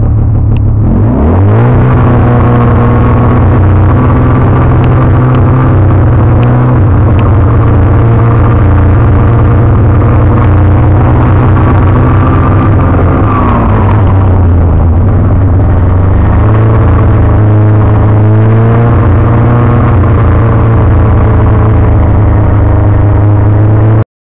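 Snowmobile engine revving up about a second in, then running steadily under load as it tows a trail-grooming drag, its pitch dipping briefly around the middle and wavering near the end.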